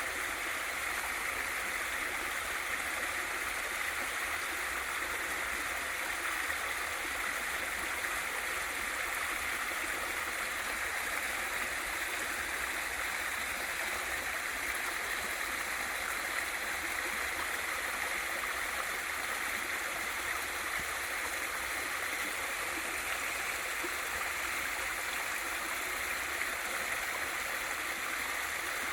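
Small waterfall in a mountain valley stream: water splashing and rushing steadily in an even hiss, with no change in flow.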